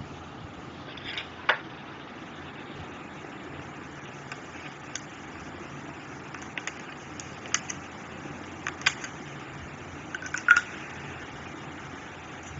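Scattered light clicks and taps of a thin metal spatula and a lipstick tube knocking against each other and a glass dish as lipstick is scraped out, over a steady hiss. The two loudest taps come about a second and a half in and near the end.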